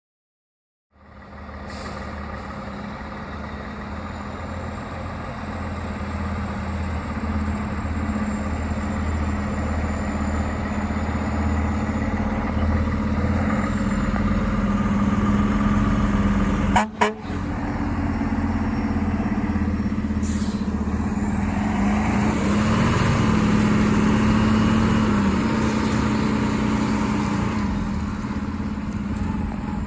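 Fire truck air horn sounding in long, repeated blasts over the truck's engine, with a brief break about halfway through.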